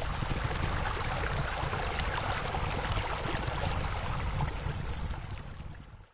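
Steady splashing of flowing water from pool water features spilling into the pool, over a low rumble. It fades out near the end.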